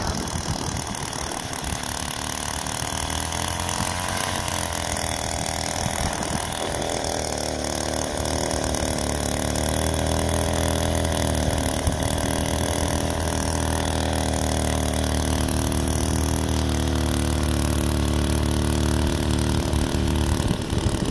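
Small 43cc two-stroke cultivator engine running steadily. Its pitch wavers for a few seconds early on, then settles and grows slightly louder.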